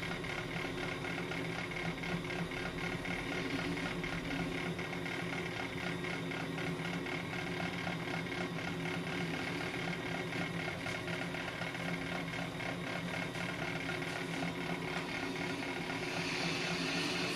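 Ammco brake lathe running steadily with a brake rotor turning on its arbor: an even motor hum with several pitched layers. A higher hiss rises near the end as a rough resurfacing pass begins.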